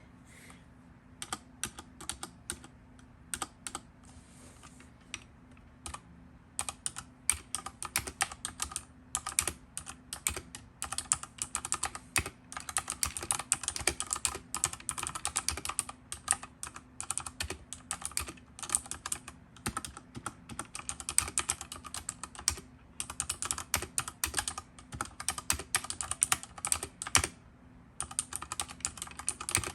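Redragon K630 60% mechanical keyboard being typed on: scattered key clicks for the first few seconds, then fast continuous typing, with a brief pause near the end.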